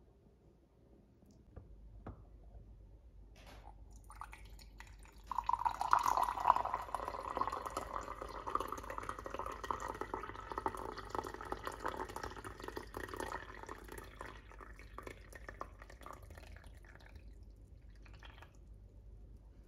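Tea being poured from a cast-iron teapot into a ceramic mug. The stream of liquid starts about five seconds in, is loudest at first, and thins out over the next ten seconds or so.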